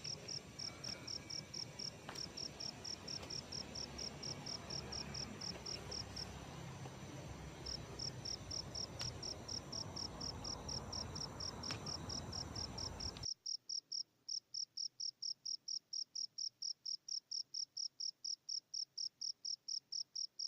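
A cricket chirping steadily at night, about five high-pitched chirps a second, pausing briefly about six seconds in. About thirteen seconds in, the background hiss cuts off suddenly, leaving only the chirps.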